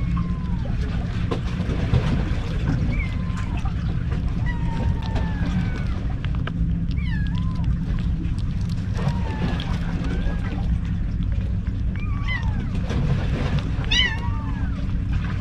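Young kittens mewing in short, high, squeaky calls, many times over, above a steady low rumble.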